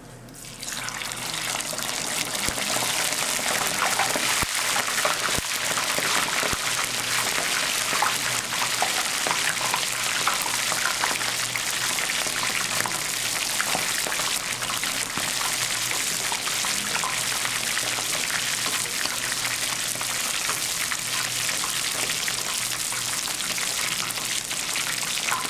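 Whole scorpionfish (kasago) deep-frying in 160 °C oil in an iron frying pan, the oil sizzling and bubbling hard: the first fry of a double-fry. The sizzle starts about half a second in, as the fish goes into the oil, then holds steady.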